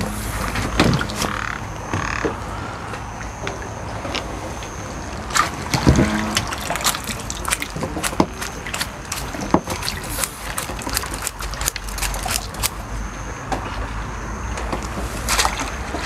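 Frogs croaking around a pond at night: a busy run of scattered clicks and croaks over a steady low rumble, with one louder knock about six seconds in.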